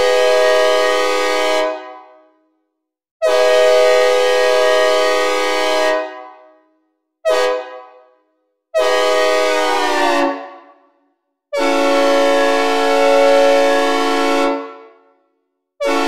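Synthesized recreation of a Nathan K5UL-AU-LS five-chime locomotive air horn, made with a software synthesizer and reverb, sounding its chord in a series of blasts. The first blast fades out about two seconds in, then come a long blast, a short one, a long one whose pitch sags as it cuts off, and a longer one, with another starting right at the end. Each blast starts sharply and dies away with a reverb tail.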